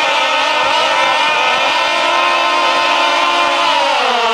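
Several 26cc two-stroke gas engines of RC deep-V race boats running at high revs together at the start line. Their pitch falls about four seconds in, as the boats are released and launch.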